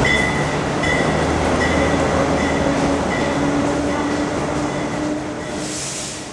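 Elevated subway trains on the move: a work train and a 7 train rumbling on the track, with intermittent wheel squeal in the first few seconds and a motor whine rising in pitch from about a second and a half in. A short burst of hiss near the end as the sound begins to fade.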